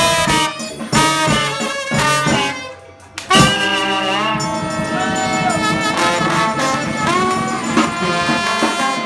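New Orleans brass band playing live, with trumpet, trombone and saxophone. Short punchy phrases give way to a brief dip just under three seconds in, then the band comes back in with a loud held chord and a falling slide and plays on.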